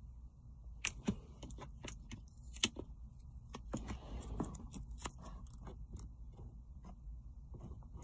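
Black electrical tape being pulled off the roll and pressed around a plastic switch module: a scatter of small crackles and sharp clicks, with a longer crackling pull near the middle.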